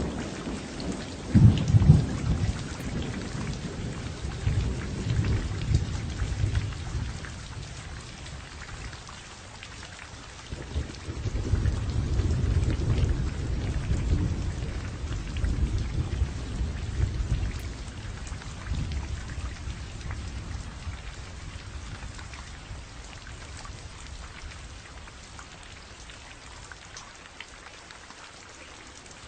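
Steady rain falling, with thunder rumbling: a sharp loud clap near the start and a longer rolling rumble in the middle that dies away toward the end.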